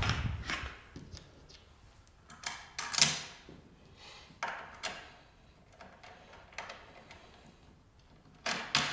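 Scattered light knocks and clicks of a wooden easel's swing arm and its mounting hardware being handled while a washer and knob are fitted onto the bolt, with the loudest knock about three seconds in.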